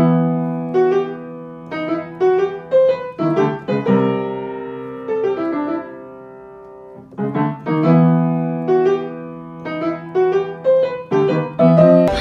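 Background piano music: a run of struck notes and chords, with one chord left ringing and fading out in the middle before the playing resumes.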